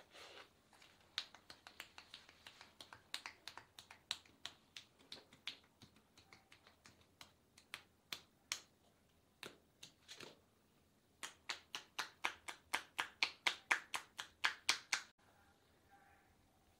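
Massage percussion: the therapist's hands strike the client's shoulder and arm in quick tapping strokes, each a sharp pop. The pops are irregular at first, then come as a fast even run of about six a second near the end, which stops suddenly.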